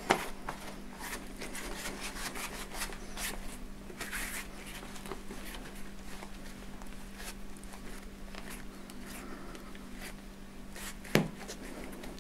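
Schwalbe Marathon Plus tyre being pushed onto a bicycle rim by thumbs, the rubber bead and hands rubbing and rustling against the rim. A sharp knock at the start and another near the end.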